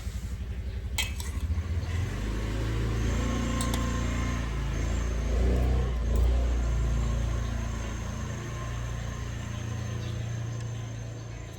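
Motorcycle engine running nearby, its low rumble swelling to its loudest about six seconds in and then settling, with a couple of light clinks early on.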